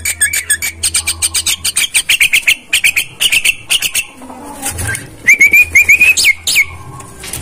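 Javan myna (jalak kebo) calling: a fast chattering run of clicks and chirps for about four seconds, then, after a short pause, a few rising whistled notes. The uploader takes it for a bird calling in breeding condition.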